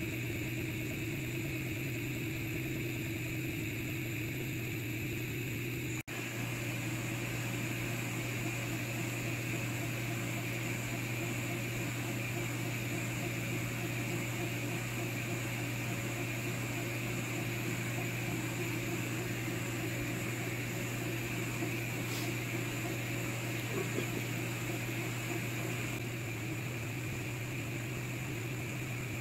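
Steady mechanical hum of a Longer Ray 5 10 W diode laser engraver running an engraving job, with a brief break about six seconds in.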